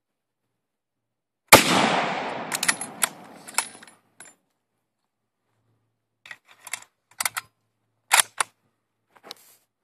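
A single shot from a WWII .303 bolt-action rifle about one and a half seconds in, its echo dying away over the next two seconds. Later a scatter of short, sharp metallic clicks and clacks as the rifle is handled and its bolt worked.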